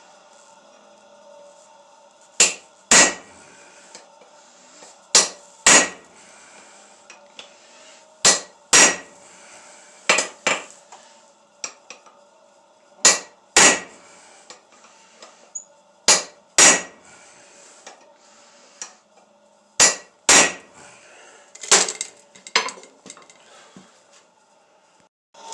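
Hand hammer striking hot steel on an anvil, mostly in pairs of blows about half a second apart, a pair every two to three seconds.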